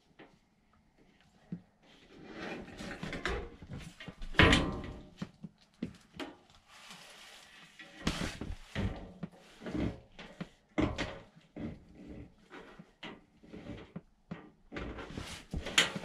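Sheet-metal handling noise: a galvanized steel drain pan scraping and knocking as it is worked into place under an air handler's evaporator coil, in irregular clanks with one loud clatter about four and a half seconds in.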